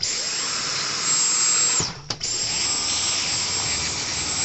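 Dyson cordless stick vacuum running with its Soft Roller cleaner head: a steady rush of air under a high motor whine. It cuts off briefly about two seconds in, then starts again.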